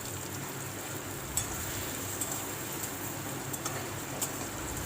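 Chopped onion frying in hot oil in a kadai, a steady sizzle, with a few light clicks.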